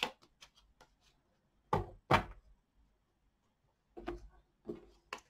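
Tarot cards and a card deck handled on a tabletop, giving short taps and knocks: two louder knocks about two seconds in, and a few lighter ones near the end.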